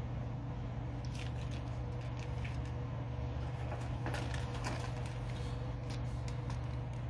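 Faint, scattered crinkling and rustling of a clear plastic bait bag being handled, over a steady low hum.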